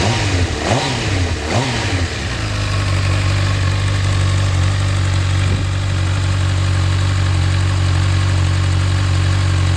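2011 Honda CB1000R inline-four on its stock exhaust: three quick throttle blips in the first two seconds, each rising and falling in pitch, then a steady idle.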